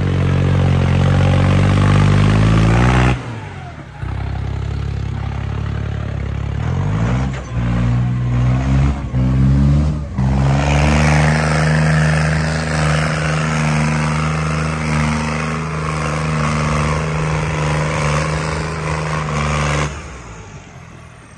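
Diesel tractor engine revved hard under load, trying to pull a stuck trolley out of mud: it climbs, drops off after about three seconds, builds again, then is held at high revs for about ten seconds before easing off near the end.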